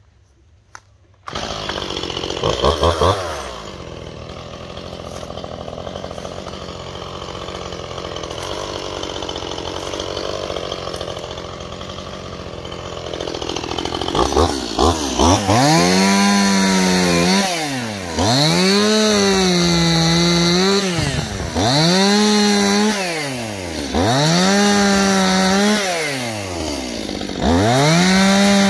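Two-stroke chainsaw starting about a second in and revving briefly, then running at a steady lower speed. From about halfway it is revved to full throttle about six times in a row while cutting into a fallen tree trunk, the engine pitch dipping and climbing back between each burst.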